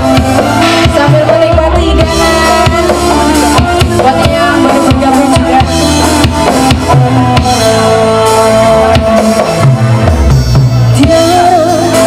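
Live band music with drums and a steady beat, mostly instrumental; a woman's singing voice comes in near the end.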